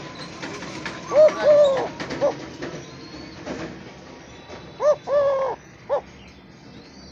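Eurasian collared dove cooing its three-note call twice: a short note, a long drawn-out middle note and a short final note, the two calls about three and a half seconds apart.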